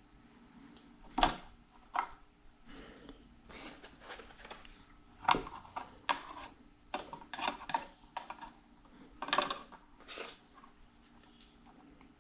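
Wire stripper and hand tools clicking and scraping as insulation is stripped from electrical wire: a series of irregular sharp clicks and short rasps, some with a faint high squeak.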